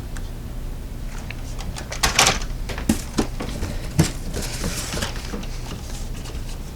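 Carded Hot Wheels die-cast cars being handled: their plastic blister packs and card backs give a few sharp clicks and knocks and two short rustling scrapes.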